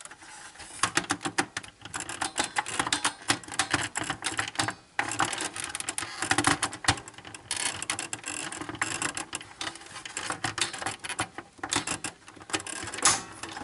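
Dense, irregular clicking and rattling of plastic and metal as the main circuit board of a Toshiba RT-150S cassette recorder is worked loose from its plastic housing by hand, with a louder click near the end.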